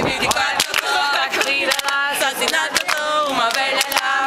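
Several young women singing the chant of a traditional Portuguese children's clapping game together, with frequent sharp hand claps.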